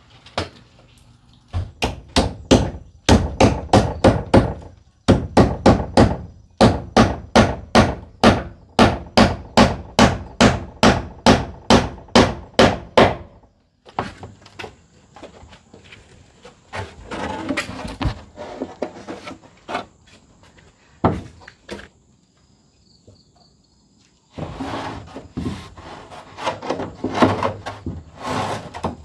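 Hammer striking wood in quick, even runs of blows, about three a second, like nails being driven into timber. The hammering stops abruptly about halfway, followed by quieter, irregular knocking and handling sounds that pick up again near the end.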